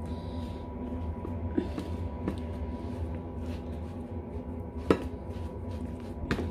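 Hand dredging raw chicken pieces in flour in a ceramic bowl: soft rustling and pressing, with two sharp knocks against the bowl, the louder about five seconds in and another near the end, over a steady low hum.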